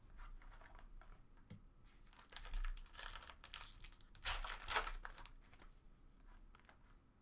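Baseball cards sliding against each other as they are thumbed through, then a trading card pack's wrapper crinkling and tearing as it is ripped open. The tearing is loudest about four and a half seconds in.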